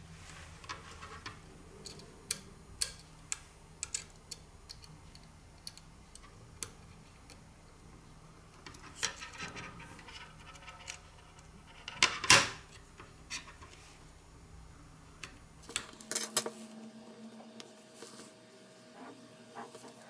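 Small clicks, taps and light scraping of fingers handling small phone parts: the new home button and its flex cable being fitted into a Samsung Galaxy S7 Edge's metal mid-frame. One louder clack comes about twelve seconds in, and a low background hum stops abruptly about sixteen seconds in.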